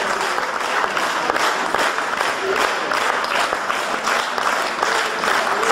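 Audience applauding, many hands clapping densely and evenly.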